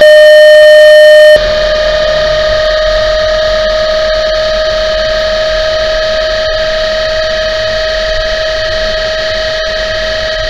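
A loud 609 Hz test sine, a pure steady tone, sounds alone for about a second and a half. Then it gives way to a recorded in-cabin differential whine over road noise, a steady whine that slowly rises in pitch. The whine is taken to be the ring gear's tooth contact frequency, a sign of differential trouble.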